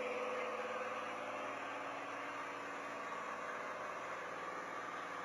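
Heavy truck's diesel engine running steadily as the truck crawls through mud.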